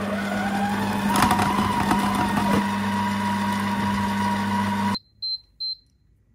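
Masterpro kitchen robot's motor running at speed 4, mixing muffin batter: a steady hum with a whine that rises in pitch over the first second, then holds level. It stops abruptly about five seconds in, followed by three short high beeps from the machine.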